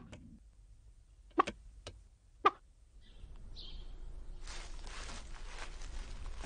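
Outdoor background ambience: four short sharp sounds in the first two and a half seconds, then a steady even hiss from about four seconds in.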